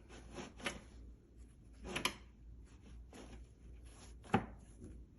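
A few light knocks and rustles as the unpowered foot massager is handled, the sharpest knock about four seconds in.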